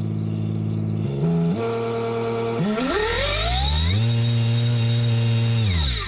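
Kobalt 40V lawn-mower brushless motor spinning unloaded on a 48 V e-bike controller. It starts with a low steady whine, steps up in pitch, then spools up into a high, steady airplane-like whine about four seconds in, and winds down at the end.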